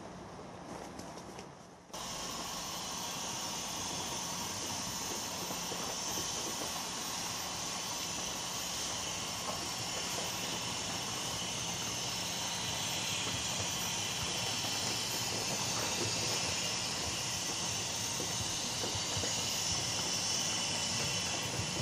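Steady hiss of steam from a narrow-gauge saddle-tank steam locomotive, blowing from its open cylinder drain cocks as it moves slowly off. The hiss starts abruptly about two seconds in and grows a little louder towards the end.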